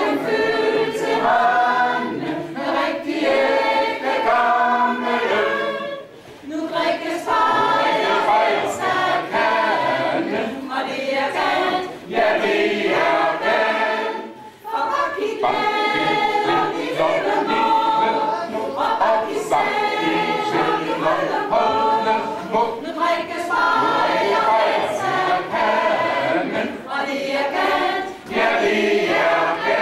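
A mixed choir of men's and women's voices singing a song, its phrases broken by brief pauses a few times.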